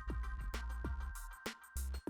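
Background electronic music with a steady, driving beat of low thumps and held synth tones.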